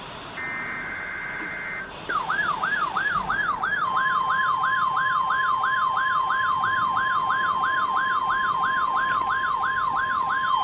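NOAA Weather Radio SAME header data bursts, a screech of two alternating tones, end about two seconds in. A weather alert radio's warbling alarm then starts, sweeping up and down about three times a second. About two seconds later the steady 1050 Hz NOAA warning alarm tone joins it, sent as the routine weekly test of the warning alarm device.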